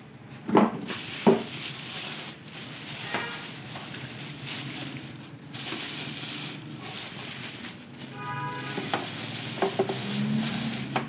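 Clear plastic bag wrapping an appliance crinkling and rustling as it is handled and lifted out of polystyrene packing, with a couple of knocks in the first second or so and a short squeak about eight seconds in.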